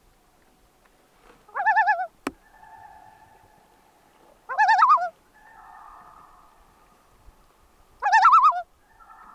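Common loon giving three short, rapidly quavering tremolo calls, about three seconds apart, with fainter steady tones between them. A single sharp click comes just after the first call.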